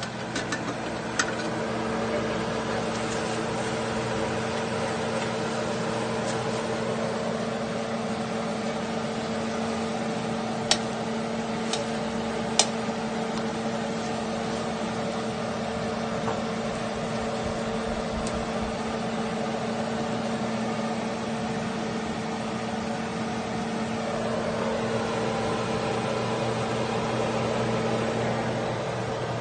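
A kitchen appliance's motor running with a steady electric hum, with a few light clinks of a spatula against a bowl around the middle.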